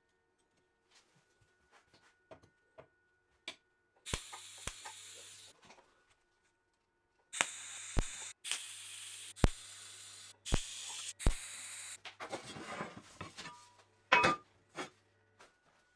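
TIG welding arc hissing through a series of short tack welds, each starting with a sharp click, with a low hum from the welder under the arc. A loud metal clank about fourteen seconds in as a length of steel square tubing is handled.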